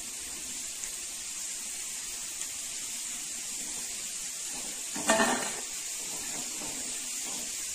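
Chana dal vadas deep-frying in a kadai of hot oil, giving a steady sizzle. About five seconds in there is a short knock with a brief ring, the slotted steel spoon tipping fried vadas onto a steel plate.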